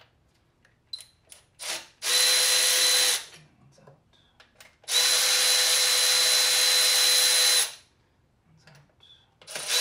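Cordless drill/driver with a socket spinning out rocker shaft bolts: a steady motor whine of about a second, then a longer run of nearly three seconds, and a third run starting near the end. A few light clicks come before the first run.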